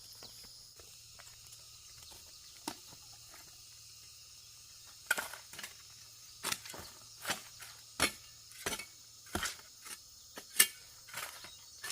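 Insects chirring steadily in the background. About five seconds in, a run of sharp knocks begins, a bit more than one a second and somewhat uneven, typical of work with a tool.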